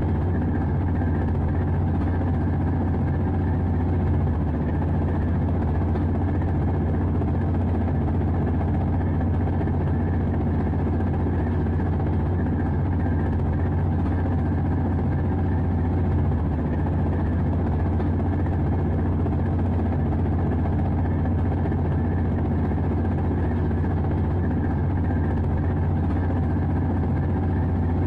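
Euro 3200 diesel-electric locomotive running steadily under way, heard from its cab: an even, unchanging low engine drone with rumble.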